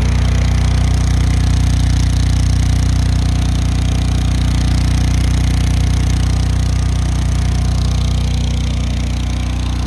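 Westinghouse portable generator engine running steadily at constant speed, its exhaust coming out of a white extension pipe fitted to the muffler through the spark-arrestor opening and run out through the shed wall. The sound is an even, low engine hum with no changes.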